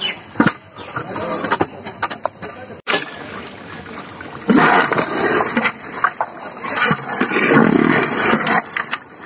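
A long metal spatula stirs mutton curry in a large aluminium cooking pot, scraping and clicking against the metal. From about halfway on, a louder rough rushing noise runs under the scraping.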